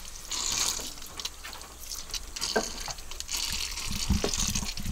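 Water from a garden hose splashing over fish on a wooden chopping block as they are rinsed, with a few light knocks as the fish are turned over by hand.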